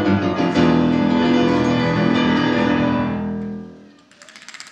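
Loud piano chords struck and left to ring, with a second chord about half a second in, fading out over about three seconds. A quick rattling of fast repeated strokes starts near the end.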